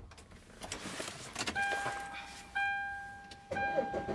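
A few light clicks, then the Hyundai Starex van's electronic warning chime ringing steadily and dinging about once a second.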